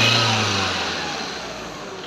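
Skoda Rapid's diesel engine running on its own during an automatic injector learning routine after an injector replacement, with the revs dropping back and the sound falling away over the two seconds. The routine is meant to cure a slight knock from the new injector.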